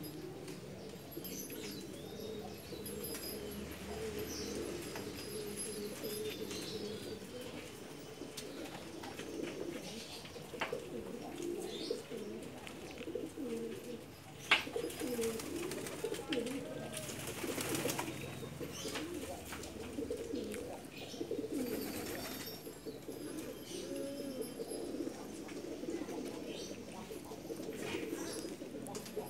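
Several domestic racing pigeons cooing continuously, their low warbling calls overlapping, with one sharp click about halfway through.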